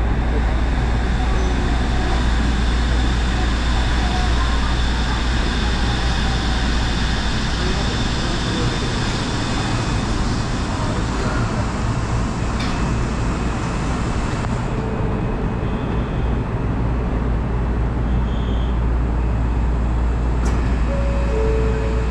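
Steady low hum and hiss inside the cab of a Shonan Monorail car standing at a station, with a short two-note tone near the end.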